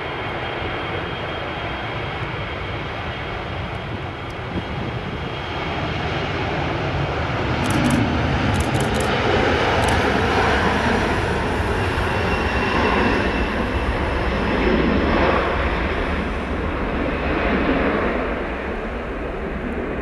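Boeing 737-300's CFM56 turbofan engines at takeoff power during the takeoff roll. A roar builds about six seconds in, stays loudest as the jet passes, and eases a little near the end as it lifts off, with a thin engine whine over it.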